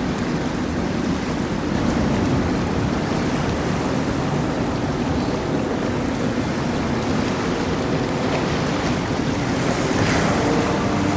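Steady wash of waves and churning water with a low boat-engine rumble underneath, and wind buffeting the microphone.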